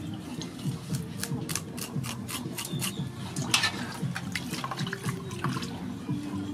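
Water sloshing and splashing in a metal basin as hands wash and rub a whole fish, with irregular small splashes and drips, the loudest about three and a half seconds in.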